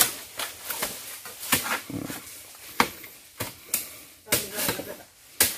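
A machete hacking at nipa palm fronds: about seven sharp chops at uneven intervals, a few quick pairs among them.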